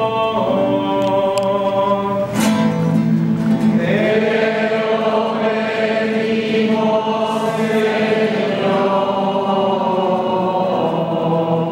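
A congregation singing a slow sung response together in long held notes, accompanied by an acoustic guitar, with a short break between phrases about two seconds in.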